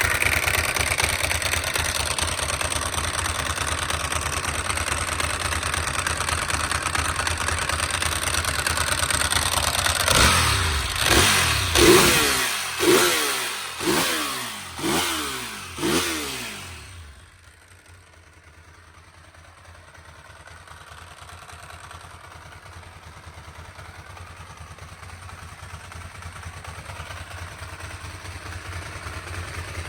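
Motorcycle engine idling, then blipped about six times in quick succession, roughly one rev a second, and shut off about two-thirds of the way through. Its running clatter is normal for this bike, not a fault. A faint steady noise remains afterwards.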